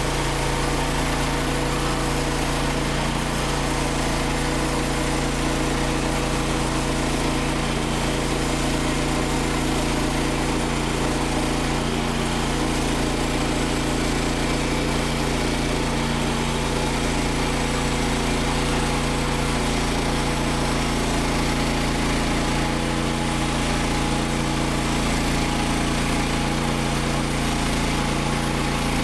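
The engine of a Frontier OS27 portable bandsaw mill running steadily at an even pitch, without a break.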